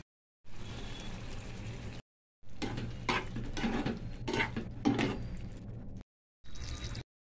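Water poured into a kadai of potato and tomato gravy, then a metal spatula stirring it, scraping and knocking against the pan about four times, over a low steady hum. The sounds come in short pieces broken by brief dead silences.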